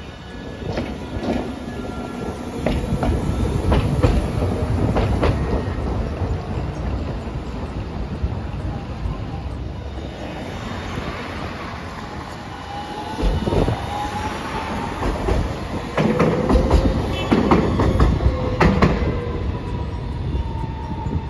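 Hiroshima Electric Railway low-floor articulated tram running on street track, its wheels clacking over rail joints and points, with a steady rumble. A high whine rises at about 13 seconds, and a steady squeal-like tone follows a few seconds later.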